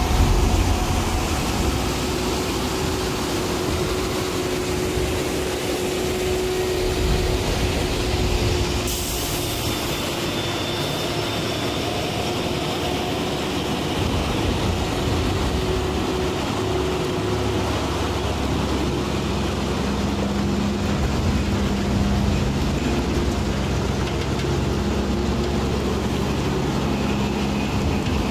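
Diesel engines of heavy-haul trucks running, a steady drone.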